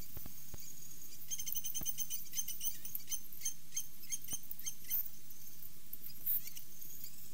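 Small bird calling: a rapid series of high, squeaky chips starting about a second in and thinning out after about five seconds, over the steady hiss of the outdoor pond microphone.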